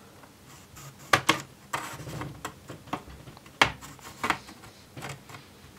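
Base panel of an Acer Aspire 5 laptop being prised and lifted off with a plastic pry tool: a series of irregular sharp clicks and snaps as its retaining clips let go, starting about a second in.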